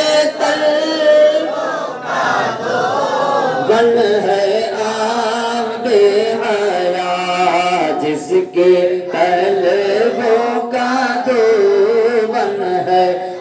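Male voices chanting a naat, an unaccompanied devotional poem, in long sustained melodic lines with no instruments.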